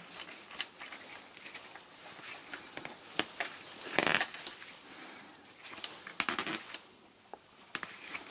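Chain breaker tool being screwed down to press a rivet pin back through a bicycle chain link, with scattered small metal clicks and chain rattles from the tool and links being handled. The louder clicks come about four seconds in and again around six seconds.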